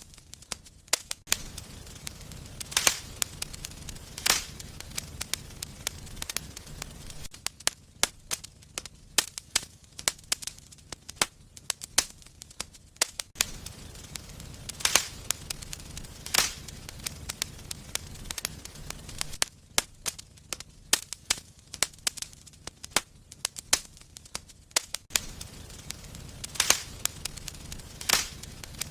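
Wood fire burning in a fireplace, crackling with irregular sharp pops and snaps, a handful of them louder than the rest. A low rumble of the flames sits underneath in stretches.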